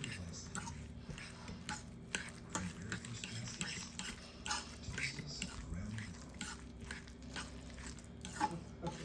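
A utensil mixing a smashed egg and mayonnaise mixture in a bowl: irregular soft clicks and scrapes against the bowl, over a steady low hum.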